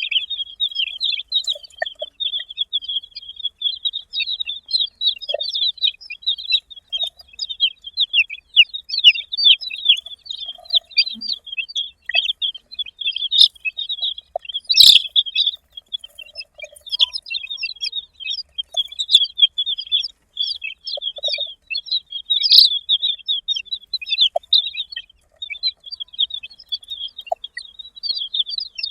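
A group of baby chicks peeping continuously, many short high chirps overlapping, with a single sharp tap about halfway through.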